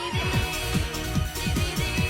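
Background music with a steady beat and held synth tones.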